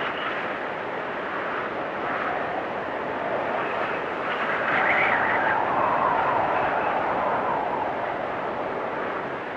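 Storm wind blowing hard and steadily in gusts, with a whistling rush that swells about halfway through, rising in pitch and then sinking lower before it eases again.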